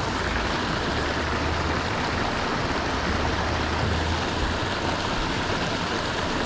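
Steady rushing of flowing water, with a low hum that swells and fades twice.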